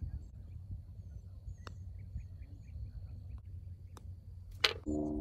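Wind rumbling on the microphone with small birds chirping, then near the end a single sharp click of a putter striking a golf ball on a short tap-in putt.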